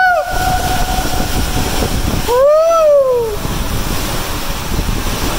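Water and air rushing through an enclosed water slide tube as a rider slides down. About two and a half seconds in, a person gives one long yell that rises and then falls in pitch.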